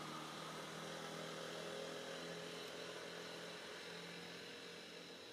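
A faint, steady engine hum, as of a motor running at an even speed.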